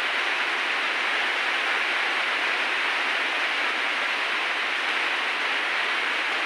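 Steady, even rush of running water, with no breaks or separate knocks.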